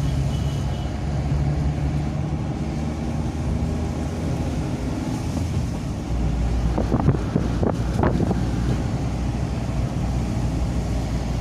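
Car engine and tyre noise heard from inside the cabin while driving, a steady low hum that grows into a deeper rumble about six seconds in, with a few short knocks from the car about seven to eight seconds in.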